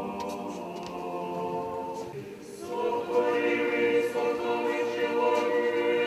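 Orthodox church choir singing a cappella in sustained chords. A phrase tails off about two seconds in, and the choir comes in again louder shortly after.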